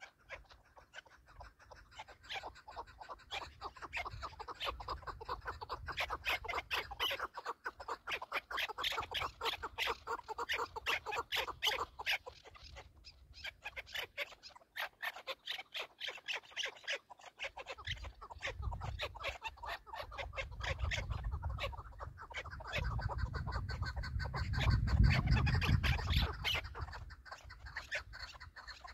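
Chukar partridges calling: long bouts of rapid clucking notes, several a second, the decoy bird and wild birds answering it. A low rumble swells under the calls in the second half.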